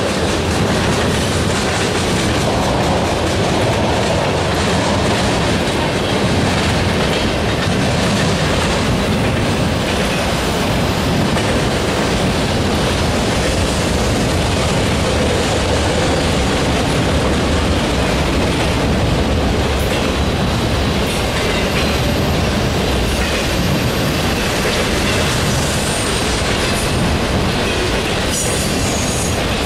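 Norfolk Southern mixed freight train's cars rolling steadily past at close range: the continuous rolling noise of steel wheels on the rails, with clickety-clack over the rail joints.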